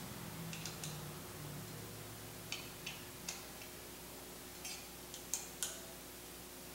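Scattered small metallic clicks and taps of a hex key working on the caliper mounting bolts of a road bike's disc brake as they are tightened, a few of them in quick pairs.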